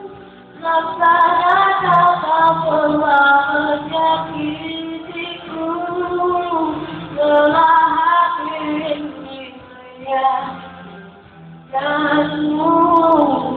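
A woman singing a slow Indonesian pop ballad in long, gliding phrases over its backing music, with a short break in the singing shortly before the end.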